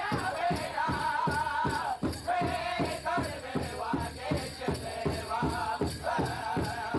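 Powwow drum and singers: a steady drumbeat at about three to four beats a second under high, wavering group singing. The singing comes in phrases with short breaks about two seconds in and again near the end.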